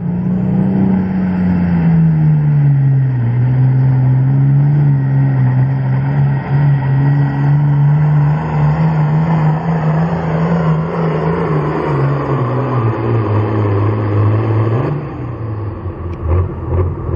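Turbocharged diesel hot stock pulling tractor running flat out under load as it drags the sled. The engine drone's pitch falls over the first few seconds, holds, then sinks further as the sled bogs it down. About fifteen seconds in, the engine is backed off.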